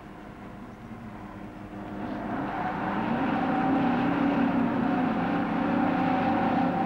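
Clark Michigan 675 wheel loader's diesel engine running under way with a steady drone, growing louder over the first three to four seconds as the machine drives past, then holding steady.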